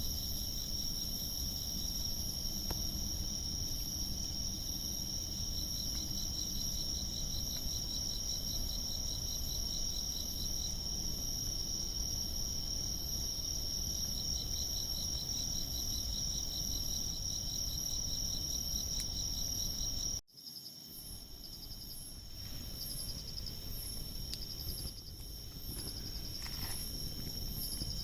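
Crickets and other night insects chirping steadily, several trilling together at different pitches with a fast pulsing rhythm. The sound cuts out for an instant about twenty seconds in, then the chirping carries on.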